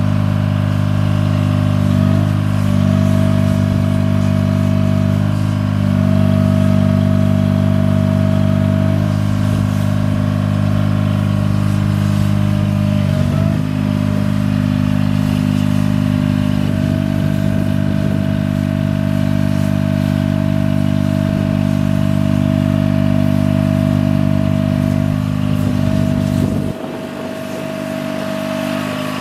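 Engine of the machine carrying a 2000 IMT 18026 crane, running steadily. A higher steady tone comes and goes every few seconds, and a little before the end the engine's low note drops away.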